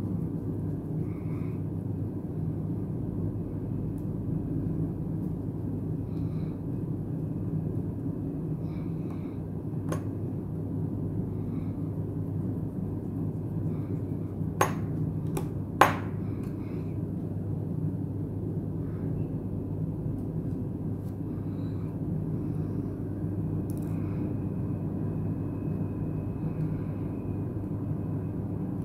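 Steady low hum of the workspace with a few small, sharp clicks of a screwdriver and tiny screws on a phone's frame: one faint click about a third of the way in, then three close together near the middle, the last the loudest.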